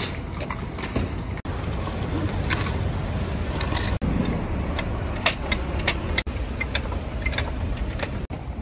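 Steady low rumble of city street traffic with scattered sharp metal clicks and clanks from a hydraulic floor jack being worked under a wooden food-stall cart.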